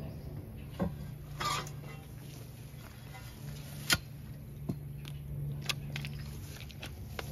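Wooden posts of an old pen being knocked and worked loose with a tool handle and by hand. A few light knocks, a short scrape about one and a half seconds in, and one sharp knock about four seconds in, over a steady low hum.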